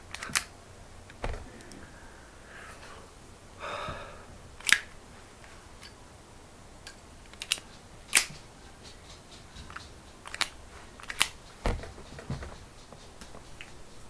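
Zippo lighter being handled and flicked open and shut: sharp metallic clicks of the lid and hinge, about half a dozen at irregular intervals, with a few soft handling bumps.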